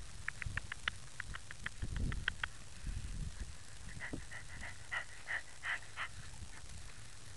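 Australian cattle dog panting in quick, short breaths, several a second, slowing somewhat after about four seconds. Low rumbles on the microphone come about two and three seconds in.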